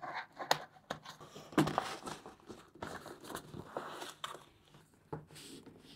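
Scissors cutting through packing tape on a cardboard shipping box, then cardboard flaps and packaging rustling as the box is opened. The sound is a string of sharp clicks and snips with rustles between them.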